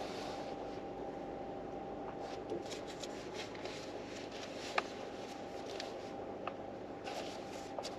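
Soft paper rustling and small clicks as a book's pages are handled and turned, over a steady low hum with a faint constant tone.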